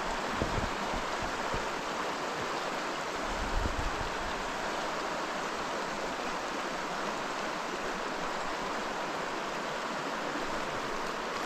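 River rapids rushing: a steady, even roar of moving water. A few brief low bumps come near the start and about three and a half seconds in.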